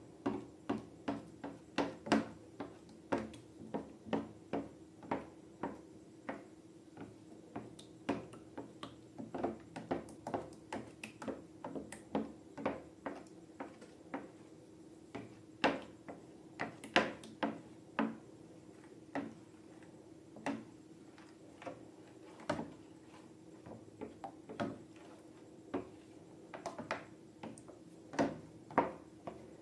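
Slime being squeezed and stretched by hand, with irregular short sticky clicks and squishes about one or two a second over a faint steady hum.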